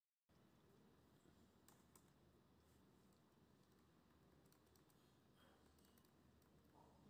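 Near silence: faint hiss with a few faint computer mouse clicks.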